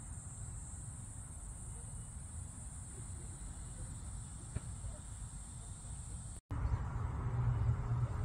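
Steady high-pitched insect buzzing over a low rumble, with a faint click about halfway through. The sound cuts out briefly about six and a half seconds in, and a louder, lower rumble with faint background sounds follows.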